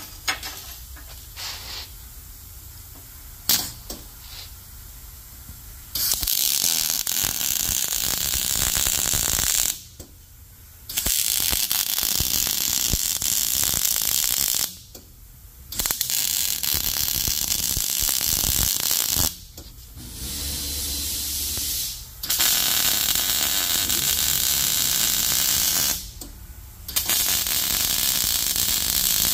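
MIG welder crackling and sizzling as it welds flanged M10 x 1.25 nuts onto steel mounting plates, in about six runs of a few seconds each with short pauses between. The welding starts about six seconds in, after a few light clicks of handling.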